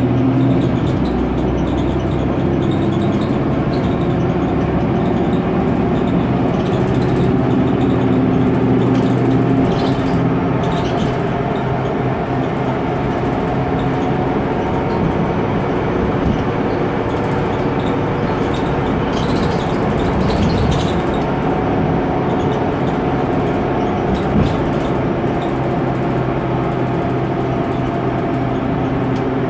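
Cabin noise inside a Mercedes-Benz Conecto NGT articulated city bus under way: its OM 936 G natural-gas engine drones steadily, its note shifting now and then. A brief hiss comes twice, about a third and two-thirds of the way through.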